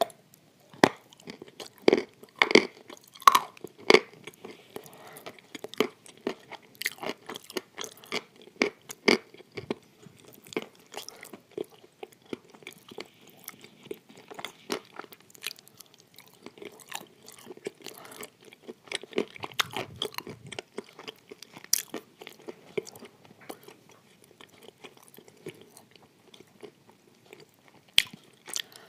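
Crunching bites and chewing of dry chunks of Uzbek blue edible clay: sharp, crisp cracks, loudest in the first few seconds, then steady crackly chewing.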